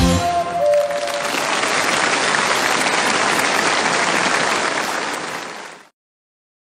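The last notes of a schlager song die away and a large audience applauds steadily; the applause fades and cuts to silence about six seconds in.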